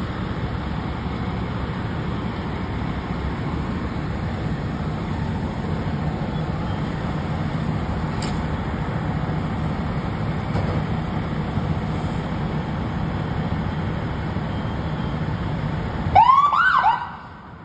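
Fire trucks' diesel engines idling with a steady low rumble. Near the end, a short loud siren burst of a few quick rising whoops, a siren test during the morning apparatus check, cuts off after about a second.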